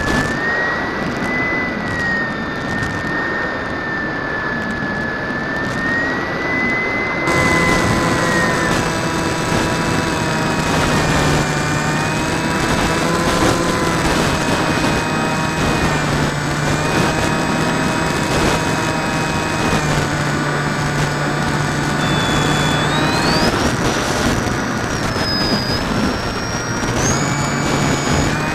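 Drifter ultralight aircraft engine and propeller running steadily, heard from the open cockpit over wind noise. Its pitch shifts several times as the throttle is changed during a low descent.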